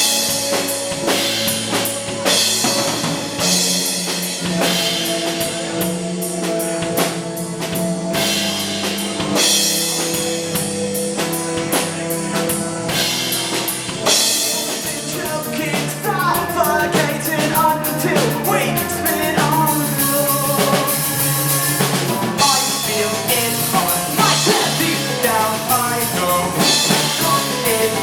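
Live rock band playing an instrumental passage: a drum kit beat under sustained chords. About sixteen seconds in, a higher, wavering melody line comes in.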